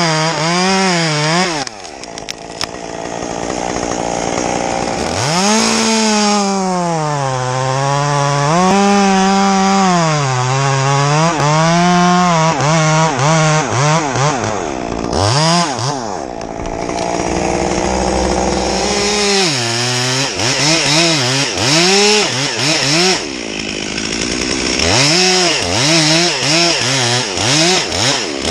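Gas chainsaw cutting through a pine trunk, the engine's pitch sagging and rising as the chain bites into the wood. It eases off and comes back several times.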